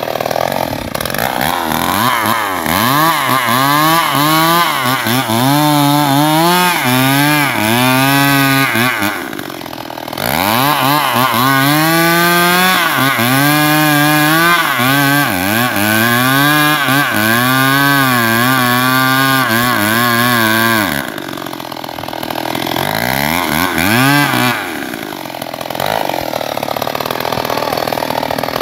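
Stihl MS 381 two-stroke chainsaw cutting into a small tree trunk, its engine revving up and down about once a second. It drops back to a lower, steadier running twice, briefly near the middle and for a few seconds late on.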